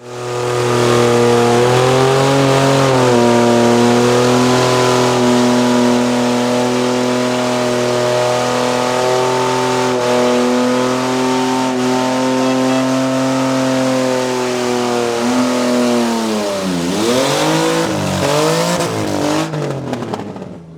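A car engine held at high revs during a burnout, over a steady hiss from the spinning tyres. About sixteen seconds in, the revs drop away, then are blipped up and down several times before falling off near the end.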